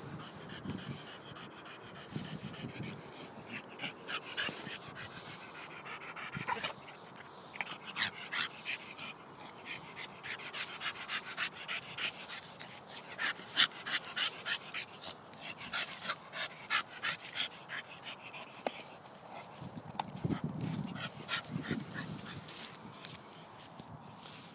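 Staffordshire bull terrier panting in quick, short breaths as it plays with a stick, with a few low bumps about twenty seconds in.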